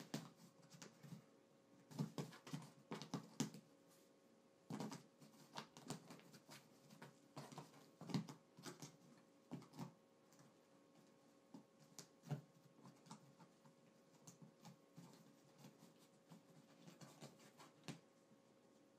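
Quiet, irregular scratching, tapping and rustling of cats moving in and against a cardboard box on carpet, in scattered clusters, loudest about two to three and a half seconds in and again around eight and twelve seconds in. A faint steady hum runs underneath.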